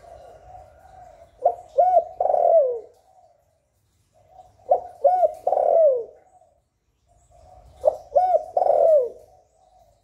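Spotted dove cooing: three song phrases about three seconds apart, each a soft low lead-in followed by two short coos and a longer coo that falls in pitch.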